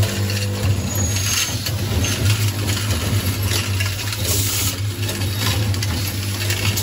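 Automatic screw assembly machine running: a steady low hum with repeated clicks and clatter from its indexing table and actuators, and a few short hisses.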